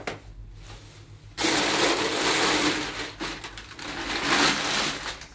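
A small electric motor starts abruptly about a second and a half in and runs steadily, a hum with a loud hiss over it.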